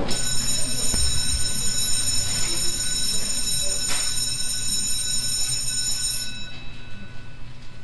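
Electronic logo-intro sound effect: several steady high-pitched ringing tones over a low pulsing hum. The high ringing cuts off about six seconds in, and the hum begins to fade near the end.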